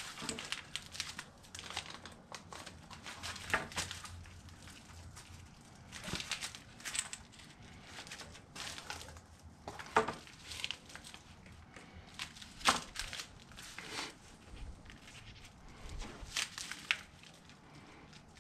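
Sea-Dek EVA foam sheet being handled and cut with a razor knife along a straight edge: irregular rustling and scraping with a few sharp clicks, the loudest about ten and thirteen seconds in.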